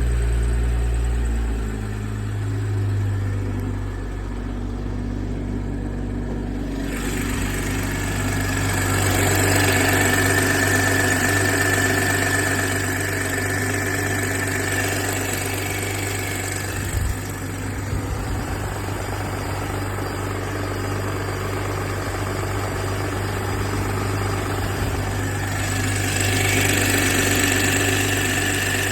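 BMW M340i's B58TU 3.0-litre turbocharged straight-six idling just after a cold start, with a ticking noise that the owner hears only for the first minute after a cold start and asks about. The sound turns brighter and sharper about seven seconds in.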